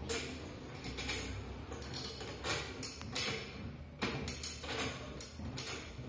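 Irregular light clicks and ticks of a threaded rubber vibration-absorber stopper being screwed down by hand on a black metal washing-machine trolley.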